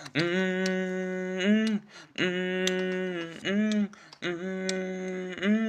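A male voice singing a wordless vowel with no accompaniment: about three long held notes, each followed by a short note that bends down in pitch, with brief silences between.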